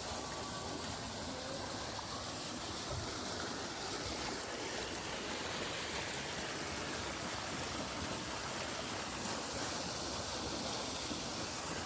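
Water gushing through a concrete sluice gate into a fishpond, a steady rushing splash as it churns into foam.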